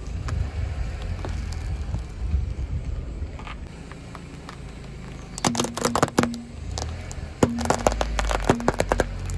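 Car tyre slowly rolling onto and crushing a bar of laundry soap and then a plush toy on asphalt, with a low rumble. About halfway through and again near the end come bursts of sharp crackling and snapping under the tyre.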